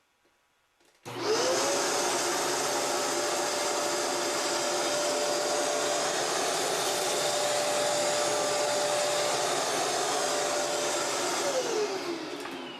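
Kenmore Elite 31150 upright vacuum cleaner switched on about a second in, its motor whining up to speed and running steadily with a loud rush of airflow, then switched off near the end, the whine falling as the motor spins down.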